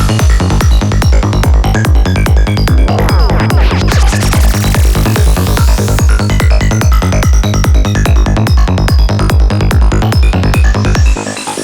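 Psy-trance track with a fast, steady kick drum and rolling bassline under synth layers. About eleven seconds in, the kick and bass drop out, leaving a rising sweep.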